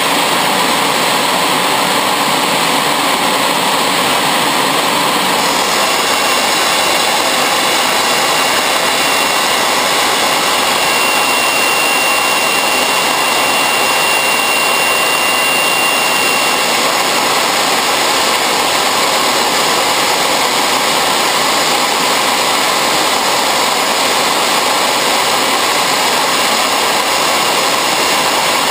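Homemade turbojet built from a small turbocharger, running steadily with a loud, even rushing noise. The sound shifts slightly about five seconds in, and a faint high whine runs through the middle stretch.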